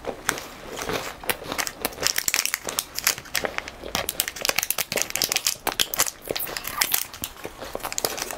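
Foil-lined plastic wrapper of a chocolate bar being torn open and peeled back by hand: a dense run of sharp crinkles and crackles.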